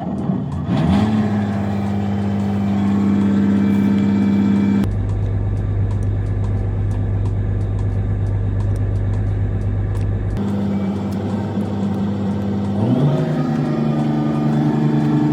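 Heavy diesel engine of an asphalt road milling machine running under load. It revs up about a second in and again near the end. About a third of the way through the hum turns abruptly to a deeper, lower drone, then returns to the higher one about two-thirds through.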